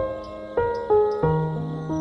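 Soft instrumental background music: single notes struck every half second or so and left to ring and fade.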